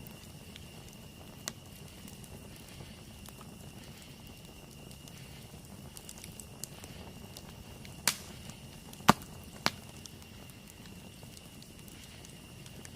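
Campfire burning with a soft steady crackle and a few sharp pops, the loudest three coming close together about eight to ten seconds in. A steady high-pitched tone runs underneath.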